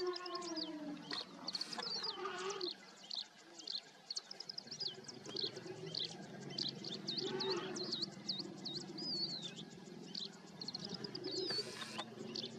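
Small birds chirping and whistling without pause, in quick sweeping notes. A brief lower call sounds at the very start, and a low steady hum sits underneath from about four seconds in.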